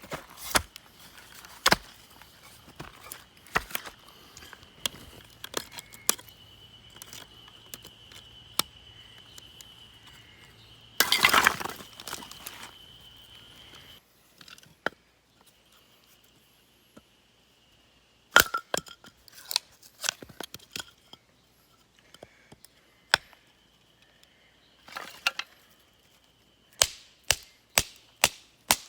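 Irregular sharp knocks and clinks, with a short louder rustling clatter about eleven seconds in. A faint steady high tone comes and goes behind them.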